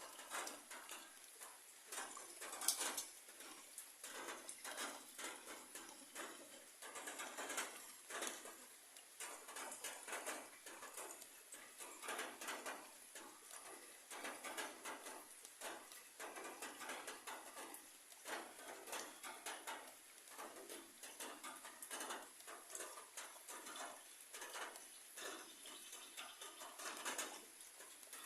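Rain falling on broad papaya leaves: a steady faint hiss with an irregular patter of drops striking the leaves, a little louder here and there.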